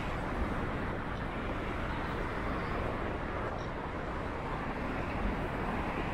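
Steady rushing noise of a bicycle ride in motion: wind on the microphone and tyres rolling, with no distinct events.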